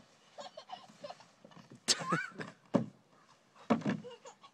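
Hard plastic kiddie pool dragged over grass by a dog, with three sharp knocks about a second apart and a short rising squeal about two seconds in.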